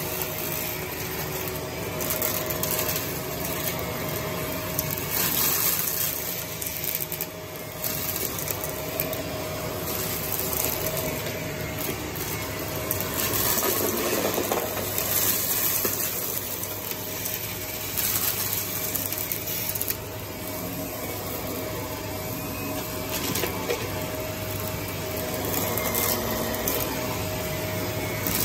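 Vacuum cleaner running with a steady motor whine and the irregular rattle and scrape of debris being sucked up.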